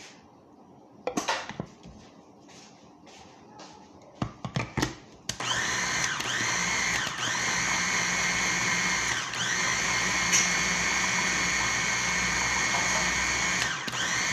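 A few clicks and knocks as the motor head of an electric food chopper is fitted onto its bowl, then about five seconds in the chopper's motor starts and runs steadily with a high whine, dipping briefly in pitch three times as the blades take the load of the thick sauce mix.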